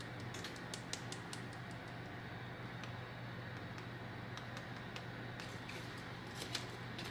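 Small light ticks of seasoning being sprinkled over carrot sticks in a glass dish in the first second or so, then wooden chopsticks clicking against the glass dish as the carrots are tossed near the end. A steady low hum runs underneath.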